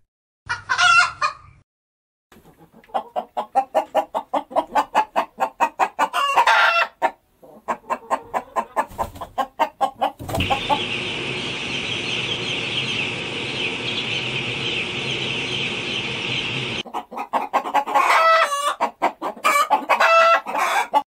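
Domestic hens clucking in quick runs of short notes, after one loud call near the start. About ten seconds in, a steady chorus of many chicks peeping takes over for several seconds, then the hens' clucking returns.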